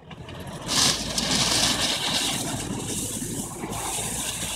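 A 4x4 SUV's engine running hard, its low rumble joined about a second in by a loud, steady hiss that holds to the end.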